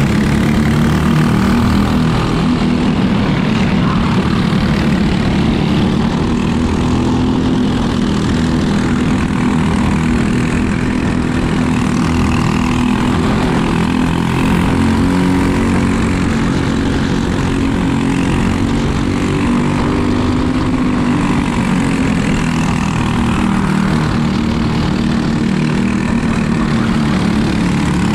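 Racing kart engine heard from onboard the kart, running steadily with small rises and falls in pitch as the kart follows others around the track.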